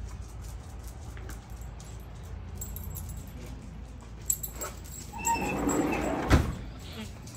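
A door being opened: a short squeak and rattle, then a sharp knock about six seconds in, with light metallic jingling before it.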